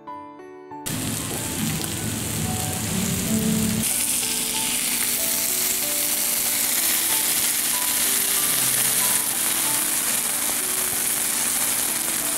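Hamburg steak sizzling loudly on a hot iron plate, starting suddenly about a second in; the hiss grows brighter about four seconds in as brown sauce is poured over the patty. Soft background music runs underneath.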